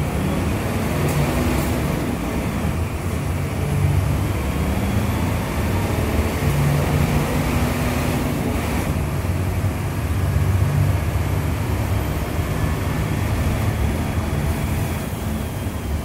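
Mercedes-Benz OF-1721 Euro II city bus's six-cylinder turbodiesel running steadily with the bus standing still, its low drone swelling and easing slightly.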